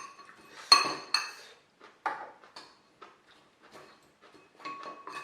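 Metal cutlery clinking and scraping against dishes during a meal, a string of sharp ringing clinks, the loudest under a second in and a few more near the end.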